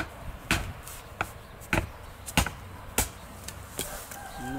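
A thick wooden branch used as a baton knocks on the spine of a Mora Bushcraft Black knife, driving the blade through a thin branch into a wooden stump. There are about six sharp knocks, roughly one every half second, with lighter taps near the end.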